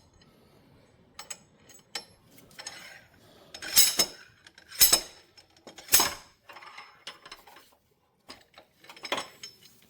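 Steel slide hammer being worked to pull the retaining pin out of an active centre differential (ACD): three sharp metallic clanks about a second apart near the middle, with lighter clinks of the tool before and after.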